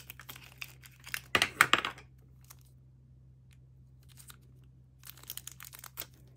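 Sticker wrapping and a thin plastic bag being torn and crinkled by hand while unwrapping a small toy capsule. There is a loud crackly burst about a second and a half in, then softer crinkles near the end.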